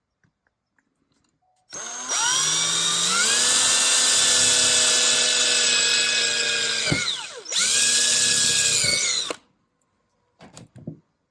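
Electric drill with a 1/4-inch bit boring the wire hole up through the bottom of a shift knob. It starts about two seconds in and rises in pitch to a steady run. It winds down and stops briefly about two-thirds of the way through, then runs again for a couple of seconds and stops.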